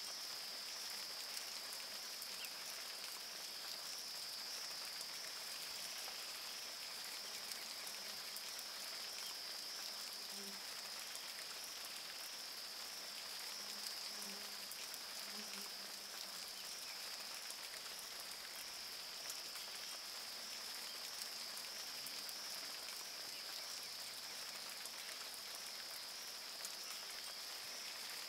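Steady rain falling on a river's surface, a fine patter of drops, over a steady high-pitched buzz.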